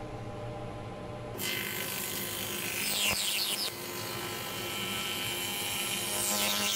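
Table saw with a dado stack running, then cutting into a wooden rail about a second and a half in as the board is pushed across the blades to form a tenon. The louder cutting noise goes on until it drops off near the end, with the saw's motor still humming underneath.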